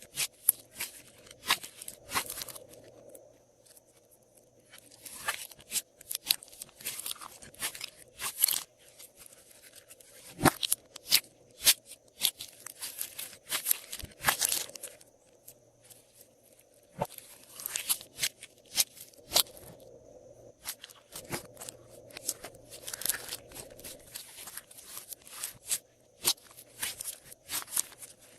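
Glossy slime being mixed and squished by hand, giving bursts of sticky crackles, clicks and pops separated by short pauses.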